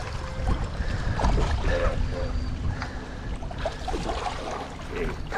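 Wind rumbling on the microphone over water lapping against shoreline rocks, with splashing from a hooked smallmouth bass thrashing at the surface beside a landing net.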